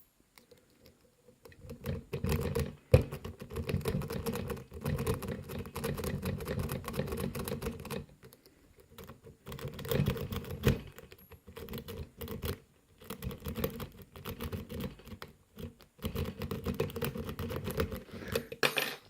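Metal rake pick scrubbing in and out of a Tri-Circle 264 pin-tumbler padlock: fast, rattling clicks of the pins in bursts, with short pauses and one sharper click about 3 seconds in.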